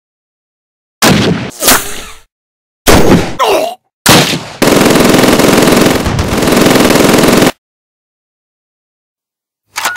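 Dubbed gunshot sound effects: about five single shots, each with a short decay, then a continuous burst of automatic gunfire lasting about three seconds.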